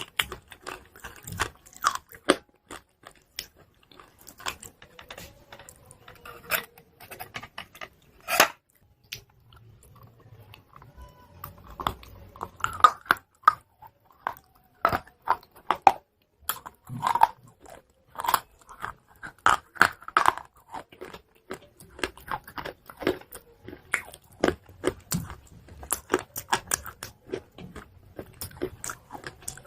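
Close-up biting and chewing of crunchy chalk pieces: many sharp, irregular crunches, some louder bites standing out.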